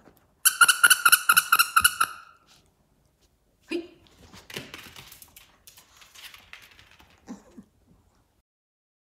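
A squeaky dog toy squeaked rapidly, about six high squeals a second for under two seconds. Softer rustling and shuffling follow, with a couple of short low sounds.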